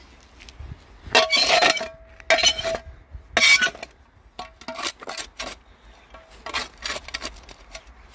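Small metal hand scoop scraping and digging soil out of a gap against a granite grave base. Three loud scraping strokes in the first few seconds carry a faint metallic ring, followed by lighter scrapes and clinks.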